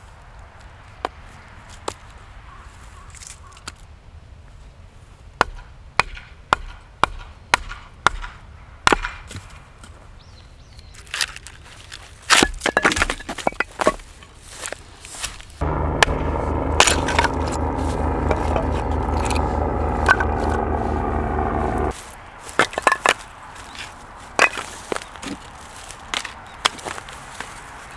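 Firewood being broken and split: a series of sharp cracks and snaps of wood. In the middle, a steady mechanical hum runs for about six seconds and stops abruptly.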